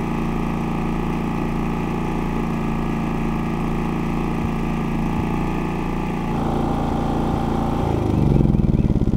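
Harbor Freight Predator 3500 inverter generator's single-cylinder engine running steadily at full throttle, with a couple of faint pops, the slight misfire that the owner hears often at this setting and suspects comes from the machine or its fuel. About six seconds in its note drops; near the end it is shut off and shudders as it winds down in slowing pulses.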